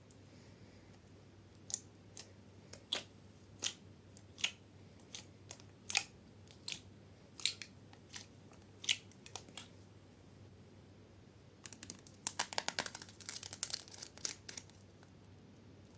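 Slime being handled by hand, giving a series of sharp separate clicks and pops. Near the end comes a burst of dense crackling lasting about three seconds.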